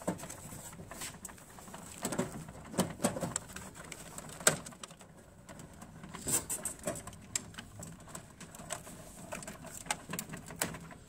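Irregular clicks, knocks and rattles of hands working the plastic panels and coin mechanism inside an old soda vending machine, the sharpest knock about four and a half seconds in.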